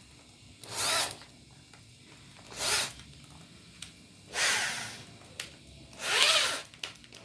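Electric drill triggered in short bursts, about five times roughly a second and a half apart, each burst spinning up and winding straight back down.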